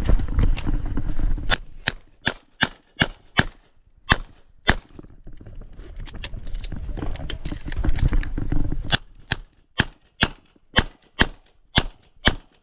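Smith & Wesson 929 revolver firing .38 Short Colt rounds in rapid strings, about two to three shots a second, with a pause of about four seconds in the middle. A low rumbling noise fills the quiet stretches between strings.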